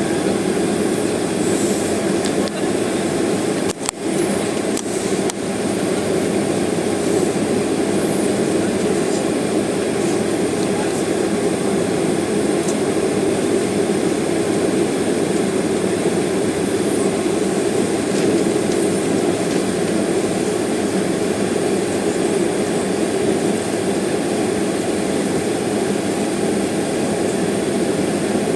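Jet airliner cabin noise while the aircraft is stopped on the taxiway waiting for takeoff: the engines idle and the cabin ventilation runs as a steady low rush, with a faint high whine over it.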